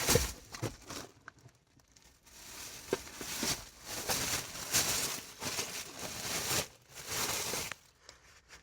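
Crinkling and rustling as a fresh, still-warm Maltese ftira loaf is handled, in several irregular bursts with short pauses between them.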